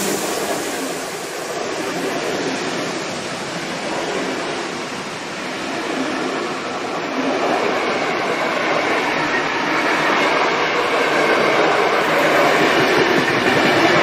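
Passenger coaches of a steam-hauled train rolling past at speed, a steady wheel-on-rail running noise that grows louder in the second half.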